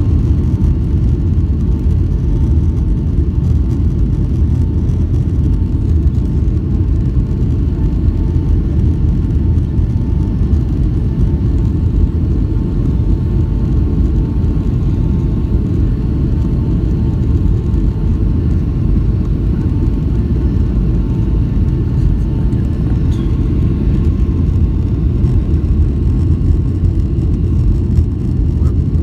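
Boeing 757-200 cabin noise on final approach with flaps extended: a steady, loud rumble of engines and rushing air, with a faint steady whine above it.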